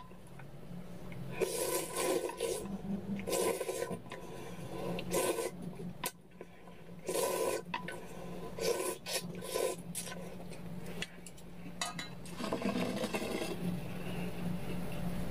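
Slurping of cold soy-milk noodles (kongguksu) straight from the rim of a stainless-steel pot: a string of short, noisy sucks, each about half a second, coming every second or two.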